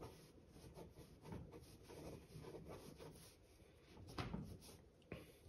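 Faint scratching of a ballpoint pen on sketchbook paper, drawing in short strokes, with a slightly louder stroke about four seconds in.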